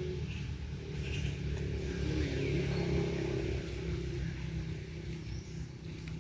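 A motor vehicle's engine rumbling, building up about a second or two in and easing off toward the end.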